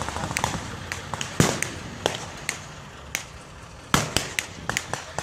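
Scattered blank gunfire from a reenacted battle: irregular sharp shots, a few a second, some close and some farther off, with the loudest about a second and a half in and again near the end.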